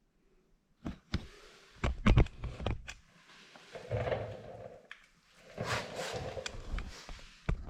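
Handling noises: a run of sharp knocks and clunks, with rustling in between and a last knock near the end.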